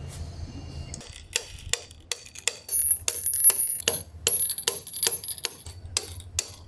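Hammer striking stainless steel bolts set through a stainless mounting plate on the hull, driving them home. The strikes start about a second in and come about three a second, each a sharp metallic clink with a high ring.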